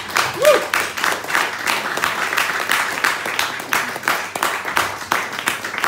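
Audience applauding at the end of a song, with one short whoop from a listener about half a second in.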